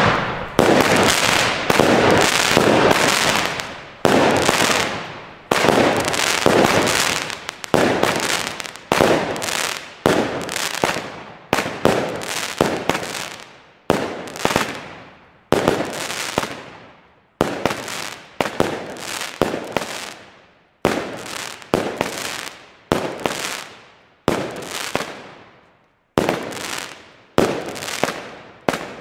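Sunburn two-stage gold fireworks battery firing shot after shot: dense for the first few seconds, then a separate shot about once a second, each bang fading out in a trailing hiss before the next.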